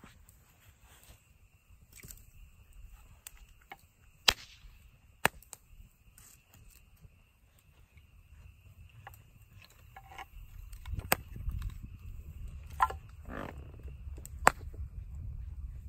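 Wood campfire crackling: scattered sharp pops and a few loud snaps from the burning wood, over a low rumble that grows louder about eleven seconds in.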